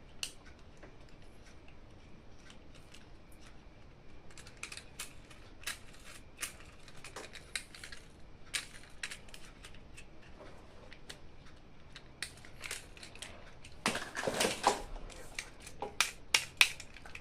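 Hands handling plastic toys and packaging: scattered small clicks and taps, a burst of crinkling and crushing about fourteen seconds in, then a few sharper clicks near the end.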